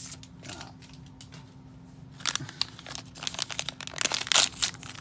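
Crinkling and rustling of a small crimped plastic blind-bag wrapper being handled and torn open by hand. It starts about two seconds in as irregular crackles and grows loudest near the end.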